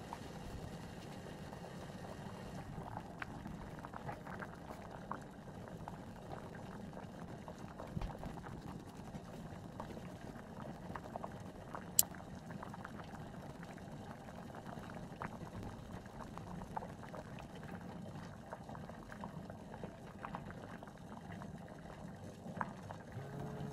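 A saucepan of water at a rolling boil with rice noodles in it: steady bubbling with many small pops, and one sharp click about halfway. Just before the end, the phone's countdown timer alarm starts to ring.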